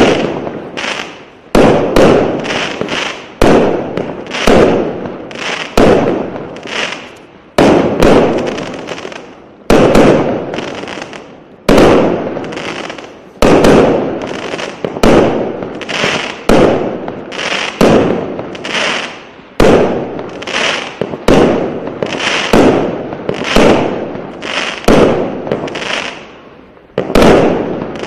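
An 80-shot, 0.8-inch firework cake firing shot after shot, about one every second and a half. Each shot is a sharp report that trails off before the next.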